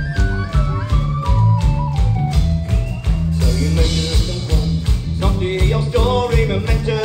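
Folk-punk band playing live, recorded from the crowd: a driving drum beat and heavy bass under a high instrumental melody that steps down in pitch, with voices singing from about halfway through.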